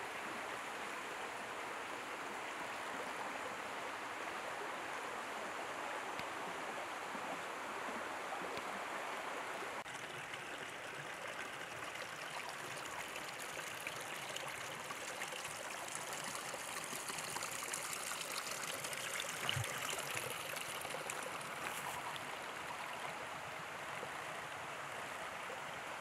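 Mountain stream flowing steadily, an even rushing of water. One brief soft bump a little over two-thirds through.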